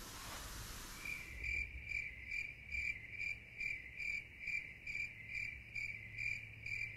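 Cricket chirping steadily, about two and a half chirps a second over a low hum, starting about a second in.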